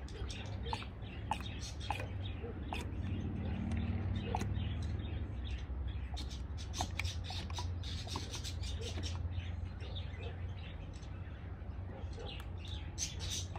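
Small birds chirping in short, rapid notes over a steady low hum.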